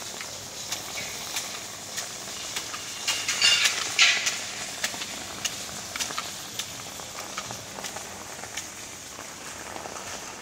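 Heavy rain falling on a car: a steady hiss with many sharp drop taps, and a louder rush of noise a little over three to four seconds in.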